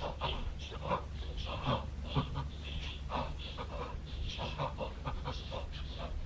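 Voices of a choir making breath sounds rather than sung notes: many short, irregular breathy bursts overlapping, several a second, over a low steady hum.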